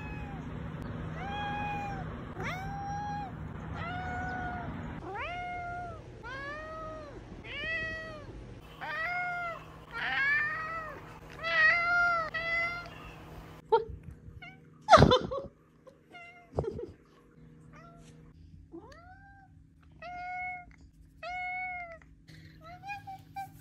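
A domestic tabby cat meowing over and over: short meows that each rise and fall in pitch, about one a second, coming faster and louder about ten to thirteen seconds in. About fifteen seconds in there is a single sudden loud bump, and then the meows start again at a steadier pace.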